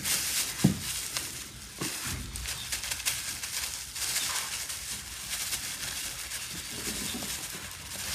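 Thin plastic bag crinkling and rustling as powder is shaken out of it into a plastic bucket, with a couple of short soft knocks in the first two seconds.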